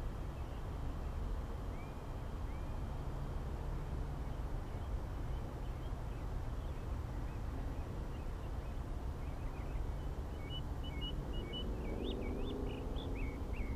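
Steady low outdoor rumble with faint, scattered bird calls that become more frequent in the last few seconds.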